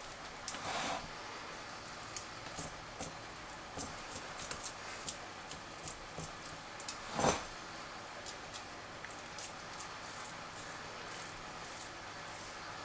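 Silicone spatula smoothing raw sausage-meat filling in a puff-pastry-lined pie dish: soft, irregular scraping and squishing strokes, with one louder stroke about seven seconds in.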